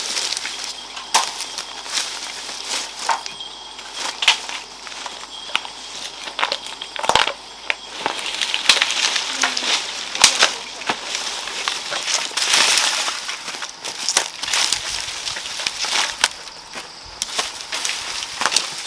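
Irregular crunching and rustling of rice plants being harvested by hand, with many sharp snaps.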